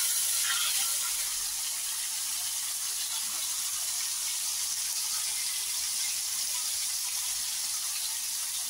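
Skewered marinated mutton pieces frying in shallow oil in a hot pan: a steady sizzle.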